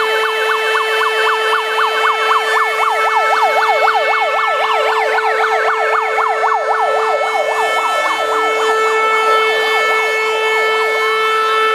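Fire engine sirens sounding together: a fast up-and-down yelp, about four sweeps a second, over a steady held siren tone. The yelp fades out near the end while the steady tone carries on.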